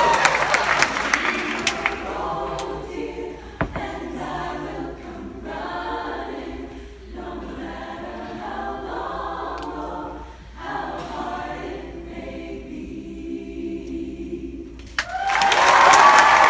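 Women's a cappella choir singing in chords. It is softer through the middle and swells into a loud held chord near the end.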